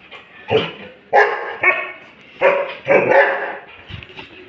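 Doberman Pinscher barking, a quick series of about six barks over roughly three seconds.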